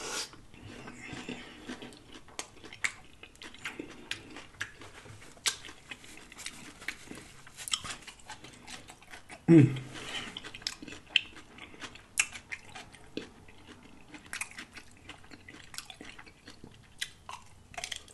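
Close-up chewing of a crunchy hard taco shell: repeated sharp crackles and crunches with wet mouth sounds. About halfway through, the eater makes a brief loud vocal sound.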